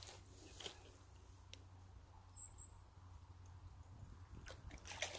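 Near silence outdoors: a faint steady low hum, a few light clicks and rustles, and one brief high chirp about halfway through.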